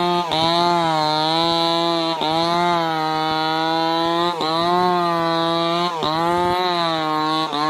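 Stihl chainsaw running at high revs while ripping a log lengthwise; its pitch dips briefly and recovers every second or two.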